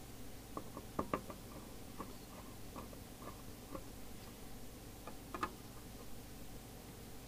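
Scattered light clicks and taps of a CB radio's case and small parts being handled and fitted back together, with two sharper clicks about a second in and another cluster about five seconds in, over a low steady hum.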